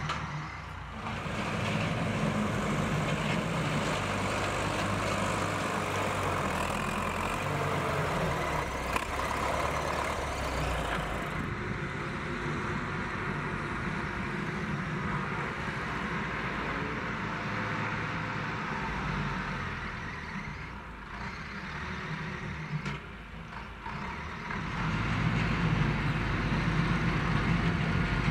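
Farm tractor's diesel engine running steadily as it works a front loader. It drops somewhat about three-quarters of the way through, then comes back louder near the end.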